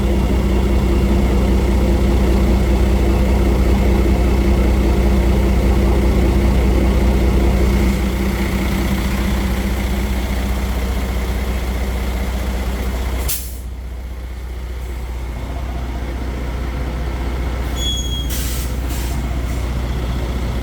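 A heavy vehicle engine running steadily with a low drone. About two-thirds of the way through comes a brief sharp noise, after which the engine runs noticeably quieter. Near the end there are a couple of short faint squeaks and rattles.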